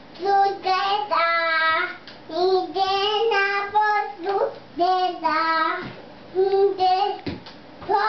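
A young boy singing a made-up song in short phrases of a second or less, the pitch stepping up and down, with brief gaps between phrases.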